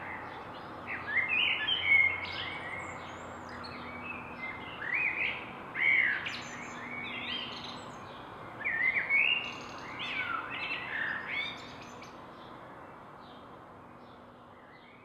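Several songbirds chirping and singing in short clusters of quick rising and falling notes, over a faint steady background hum; the sound fades down near the end.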